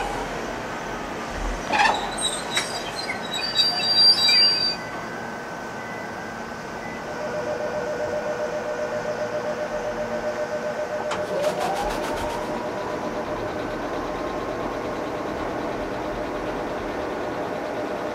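A standing Ichibata Electric Railway 5000-series electric train. There are a few clicks and a short high beep in the first five seconds. From about seven seconds the train's onboard equipment gives a steady, fast-pulsing hum, and about eleven seconds in a whine rises in pitch and then holds.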